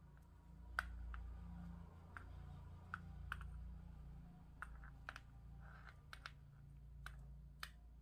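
Faint, irregular clicks and light rubbing of nylon paracord being handled and pulled tight while tying a knot by hand, over a low steady hum.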